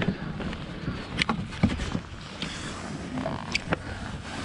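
Scattered clicks and knocks from gloved hands handling a freshly caught young yellowtail over a steady wash of water and wind noise.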